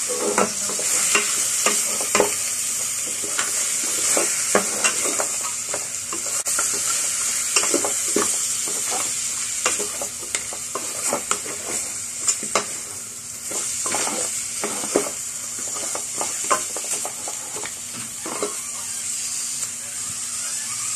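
Meat and bones sizzling as they sauté in a metal pot, with a wooden spatula scraping and knocking irregularly against the pot as they are stirred.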